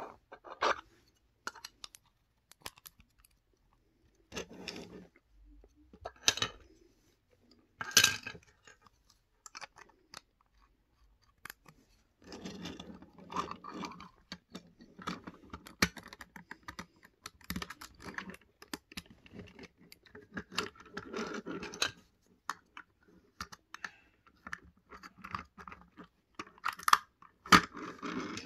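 LEGO bricks and Technic gears being handled: small plastic pieces clicking and rattling against each other and the wooden surface, in bursts with a lull of a few seconds about a third of the way in.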